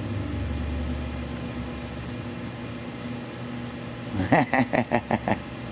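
Steady low hum of a running machine, with a man's voice coming in about four seconds in.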